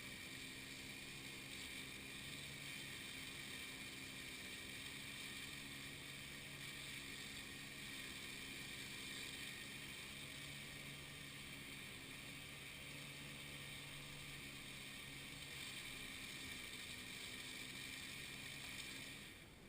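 Faint engine running steadily with an even hum, cutting off abruptly at the very end.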